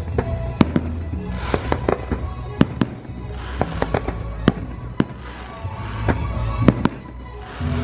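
A fireworks display: a dozen or more sharp bangs from bursting shells at irregular intervals, some followed by a hissing crackle, with the show's music playing under them.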